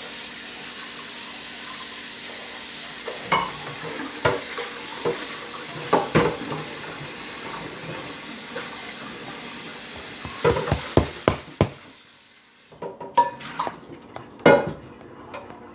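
Kitchen tap running into a sink, a steady hiss, with utensils and dishes clinking and knocking; the water is shut off about eleven seconds in, then a few more clatters.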